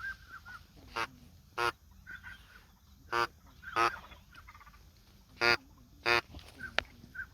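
Waterfowl honking: loud, short calls in three pairs, the two calls in each pair about half a second apart, with fainter higher calls in between.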